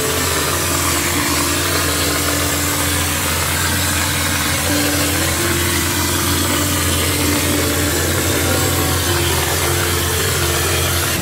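Plaster spraying rig running steadily while cork-lime insulating plaster is sprayed onto a wall: a constant low machine hum under a loud, even hiss of air and material leaving the spray gun.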